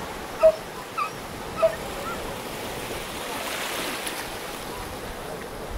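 Small ocean waves washing in over shallow water, swelling as a wave breaks about three to four seconds in. Three short, high calls in the first two seconds stand out above the surf.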